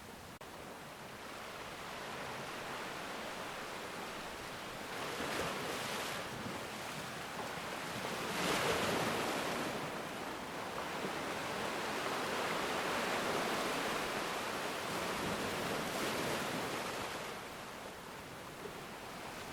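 Ocean surf breaking on a black sand beach: a steady rush of waves that swells to its loudest about eight or nine seconds in, rises again for several seconds after, and eases off near the end.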